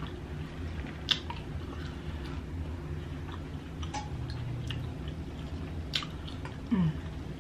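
A person chewing food from a seafood boil, close to the microphone, with scattered wet mouth clicks over a steady low hum. Near the end comes a brief, low, falling vocal sound.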